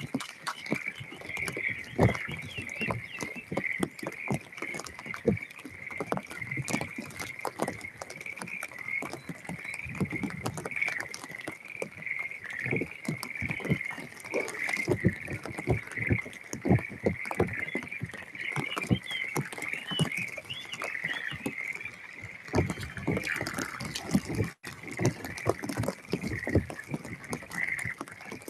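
A steady chorus of frogs calling, a continuous high trilling hum. Irregular taps of rain drops are heard throughout.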